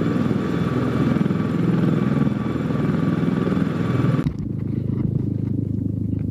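CH-53E Super Stallion helicopter noise: the fast pulsing of rotor blades under a steady turbine whine. About four seconds in it changes abruptly to a lower, steadier drone of the helicopters farther off.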